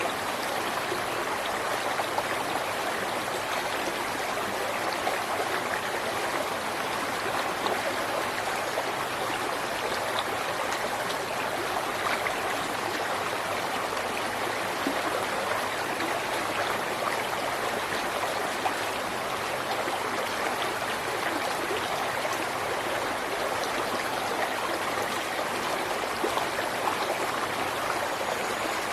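River water flowing and babbling over rocks in a steady rush, with small splashes and gurgles throughout.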